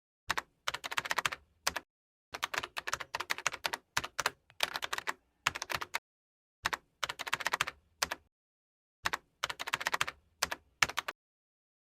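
Typing on a computer keyboard: several short runs of rapid key clicks, with complete silence between the runs.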